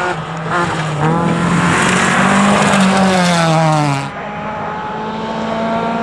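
Rally car engine at high revs on a gravel stage, with a loud hiss of tyres and gravel, its pitch falling as it goes by. About 4 seconds in the sound changes abruptly to another rally engine running steadily further off.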